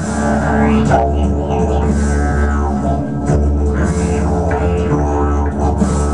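A didgeridoo's steady low drone, its overtones shifting and sweeping as the mouth shape changes, in live ambient music.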